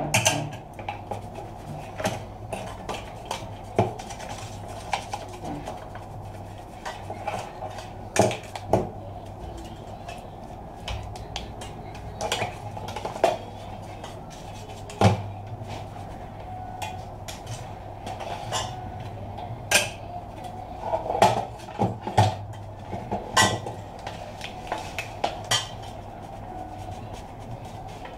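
Irregular clinks and knocks of a PC power supply's sheet-metal casing and small metal parts being handled and set down on a bench, over a steady low hum.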